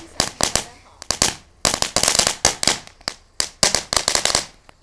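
Crackling Thumbs of Fury ground firework burning and crackling: rapid sharp cracks come in dense clusters separated by short lulls.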